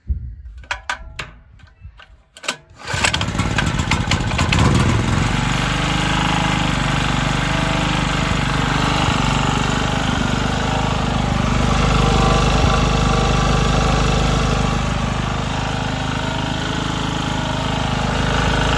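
Pobeda petrol generator's single-cylinder four-stroke engine (168F/170F type) being pull-started. A few uneven knocks of cranking, then it catches about three seconds in and runs steadily. This is the engine starting and running after valve lapping and a carburettor float adjustment cured its failure to start.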